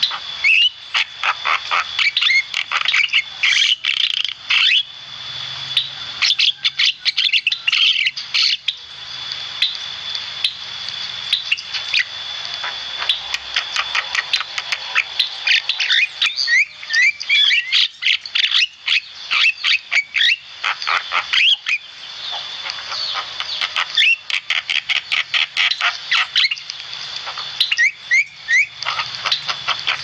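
Javan myna singing vigorously: bursts of rapid, scratchy chattering and squawking notes with short pauses between them, over a steady high-pitched tone.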